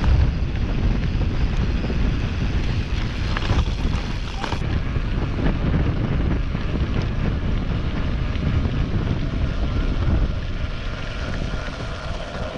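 Wind buffeting the microphone of a camera on a moving mountain bike, a steady low rumble mixed with the tyres rolling over a dirt and grass trail. There are a few sharp clicks and rattles of the bike about three seconds in.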